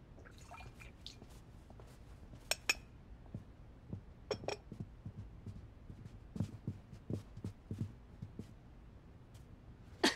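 Faint footsteps on a wooden floor, a run of soft knocks about three a second midway, with a few sharper, briefly ringing clinks earlier.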